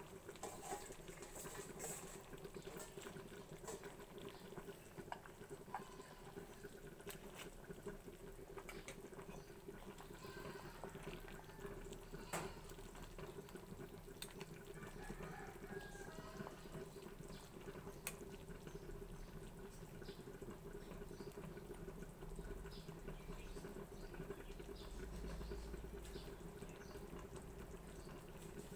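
Soup boiling faintly in a steel stockpot, a soft steady bubbling and patter over a low hum. It is broken by a few light knocks of a ladle against the pot as the soup is stirred, the clearest about 12 and 18 seconds in.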